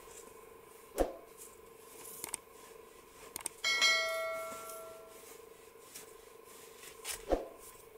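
A bell-like chime sound effect, a notification ding for a subscribe-button animation, rings out a little before halfway and fades over about a second and a half, with a few soft clicks just before it. Two light knocks, one about a second in and one near the end.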